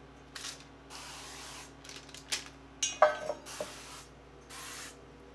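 Aerosol avocado oil cooking spray hissing in several bursts as cake pans are greased, the longest lasting about a second. A sharp knock about three seconds in is the loudest sound.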